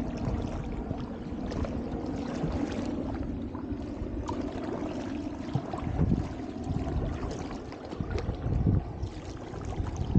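Double-bladed paddle strokes dipping and splashing in river water beside an inflatable drop-stitch canoe-kayak, with water trickling off the blades between strokes.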